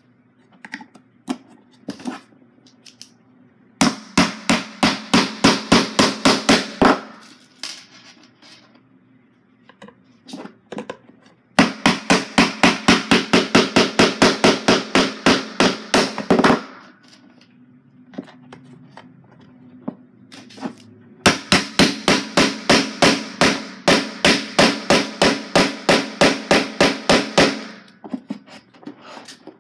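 Hammer driving small nails into the wooden pieces of a kit: three runs of quick, loud taps, about five a second, each lasting several seconds, with short pauses between.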